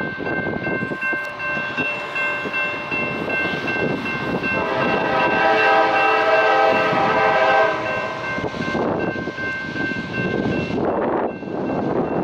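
Grade-crossing warning bell ringing rapidly, with gusts of wind on the microphone. About four and a half seconds in, the approaching CSX freight locomotive's multi-chime air horn sounds one long blast lasting about three seconds.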